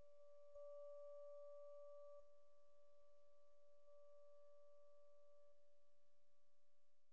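Electronic music of steady pure sine tones: a middle tone with a fainter one an octave above, and a very high whistle-like tone, the loudest. They drop in level in steps and fade out near the end.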